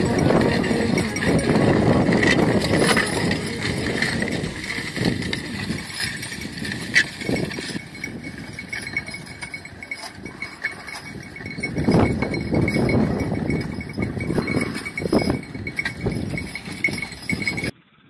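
Two-horse team pulling a disc harrow through tilled soil: hooves, harness and the harrow's metal discs and frame clanking and rattling, with many short clinks. The sound cuts off abruptly near the end.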